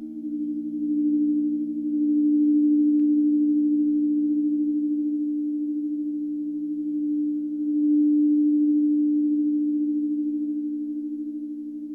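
Crystal singing bowls sounded by a wand circling the rim, several steady tones ringing together. The sound swells and eases in slow waves.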